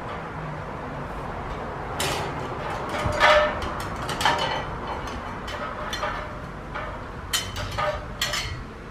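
Screws being tightened into a ceiling fan's mounting bracket by hand: scattered short metal clicks, scrapes and knocks at irregular intervals.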